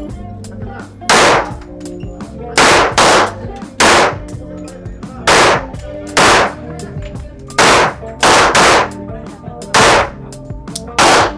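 Handgun firing about eleven shots at uneven intervals, some in quick pairs, each shot ringing briefly in an indoor range, over steady background music.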